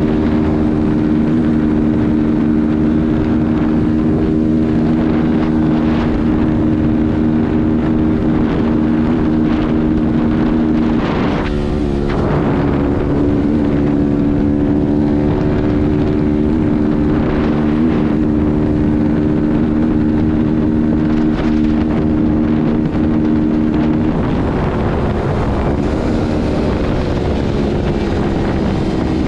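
Kuba Black Cat motorcycle engine running at a steady cruising pitch, with wind noise on the microphone. About eleven seconds in the note dips briefly and comes back. After about twenty-four seconds the steady note weakens, and near the end its pitch falls as the bike slows.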